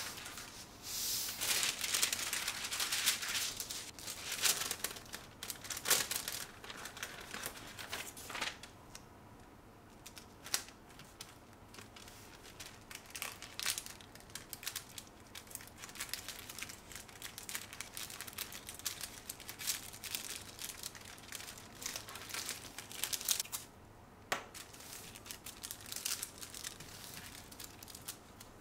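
Paper crinkling and rustling as a box is wrapped and its ends folded by hand in white wrapping paper, busiest and loudest in the first several seconds, then softer and more intermittent, with one sharp tap late on.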